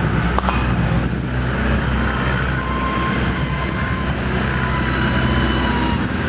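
Thin, high whine of an RC model plane's motor and propeller in flight, drifting slightly down in pitch as it passes, over a steady low rumble.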